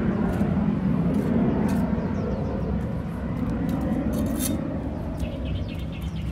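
Low rumble of a passing engine, slowly fading away.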